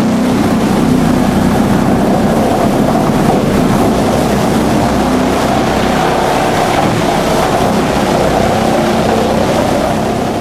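Drum wood chipper running: loud, steady machinery noise with a low hum underneath.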